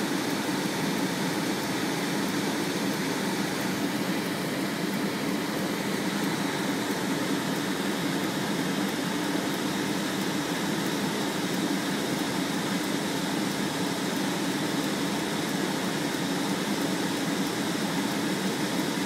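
A steady mechanical drone with a low hum, even and unchanging throughout.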